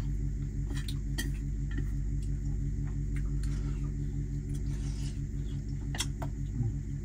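Chopsticks and a spoon clicking against stainless steel bowls and a plate while eating: a few light, sharp clinks, about a second in and again around six seconds in. Under them runs a steady low mechanical hum.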